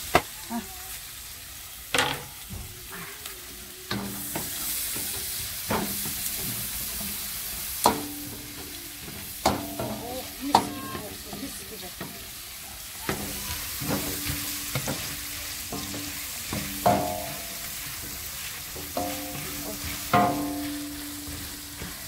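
Chopped mushrooms sizzling in butter in a large aluminium pot, stirred with a wooden spoon that scrapes and knocks against the pot every second or two.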